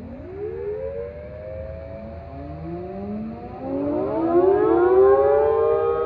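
Outdoor warning sirens winding up for a scheduled test. One wail rises from low pitch and levels off, and more sirens join one after another about two and three and a half seconds in. The sound grows louder as they reach full pitch.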